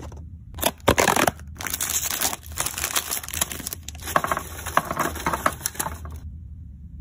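A plastic cookie package crinkling as it is handled and tipped, with small sandwich cookies clattering into a glass jar. The crinkling is loudest about a second in, and the sound cuts off suddenly about six seconds in.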